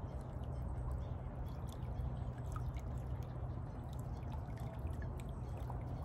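Wet magnet-fishing rope being hauled up hand over hand, water dripping and trickling off it, with faint scattered ticks over a steady low rumble.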